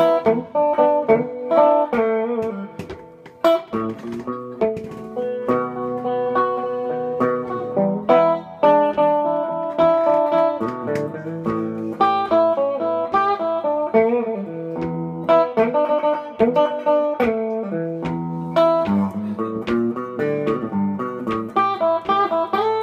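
Electric guitar played through a small amplifier: an instrumental blues passage of picked single notes and chords.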